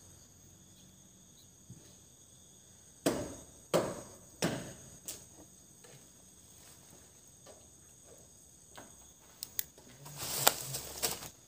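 Night insects chirping steadily in high thin tones. A few sharp knocks stand out about three to five seconds in, and a noisy scuffling burst comes near the end.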